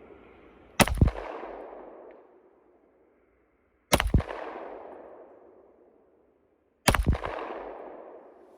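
Gunshots outdoors in three quick strings, each of two or three rapid shots, about three seconds apart, with a long rolling echo fading after each string.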